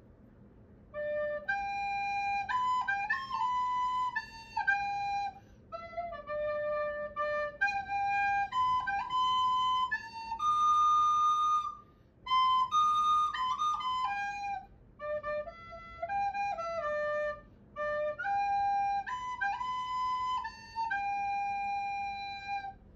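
A slow melody played one note at a time on a single flute-like woodwind, in phrases separated by short pauses, starting about a second in.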